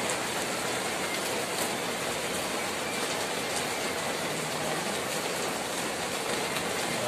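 Steady rainfall hissing on the pavement and hard surfaces.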